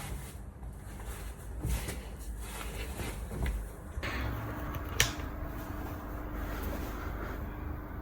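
Small household handling noises, light knocks and rustles, with one sharp click about five seconds in.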